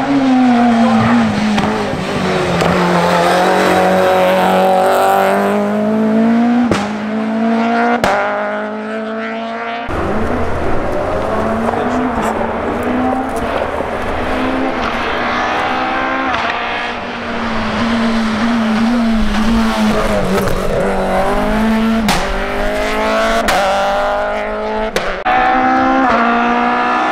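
Renault Clio hill-climb car's engine revving hard as it accelerates up the course, its pitch climbing through each gear and dropping at every shift. There is a few sharp cracks between shifts.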